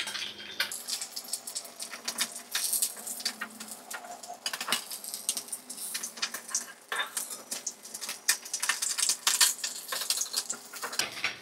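Whole climbing perch (kath koi) frying in hot mustard oil in a kadai: a steady crackling sizzle, with many small irregular pops and sharp clicks.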